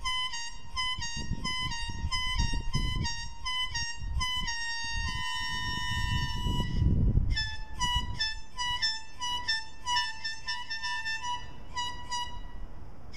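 Background music: a high, bright melody of short repeated notes stepping between two close pitches, with one long held note about halfway through. Low rumbling noise sits underneath at times.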